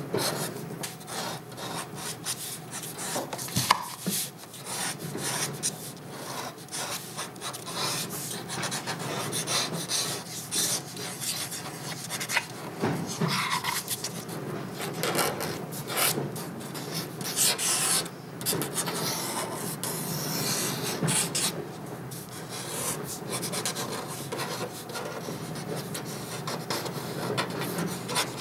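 Pen nib scratching across paper as a figure is drawn in ink: an irregular run of short and longer strokes, with one sharper tap about four seconds in.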